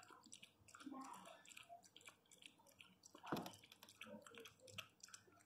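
Miniature pinscher lapping milk from a plastic tub: faint, irregular wet laps and small clicks, one louder about three seconds in.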